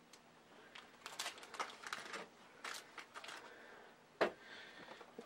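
Light clicks and crinkling of fingers working open a small advent calendar packet and handling the little piece inside, with a sharper tap about four seconds in.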